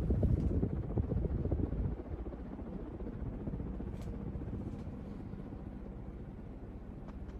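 Hampton Bay Quick Connect ceiling fan running on high speed, a steady low whoosh of moving air. Its breeze buffets the microphone with a louder fluttering rumble for about the first two seconds. The fan runs smoothly, with no bearing hiss or motor hum.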